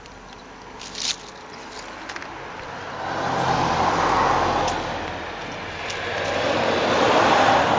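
Passing road traffic: two vehicles going by one after the other, each a rush of noise that swells and fades. The first is loudest about four seconds in and the second near the end.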